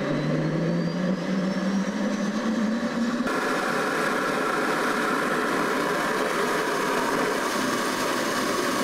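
An S-300V vehicle's onboard power unit starting up, heard inside the crew cabin: a steady mechanical whine and rush begins abruptly, with a tone rising in pitch over the first three seconds as it spools up. About three seconds in, a brighter hiss joins, and it then runs steadily.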